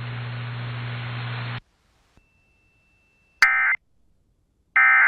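Weather radio receiver hiss with a low hum, which cuts off about a second and a half in. Then two short, harsh digital data bursts about a second and a half apart: the EAS SAME end-of-message code that closes the alert.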